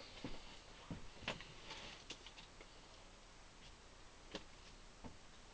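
Faint, scattered clicks and light knocks, about six over a few seconds, from hands handling steel pipe clamps and wood pieces on a workbench.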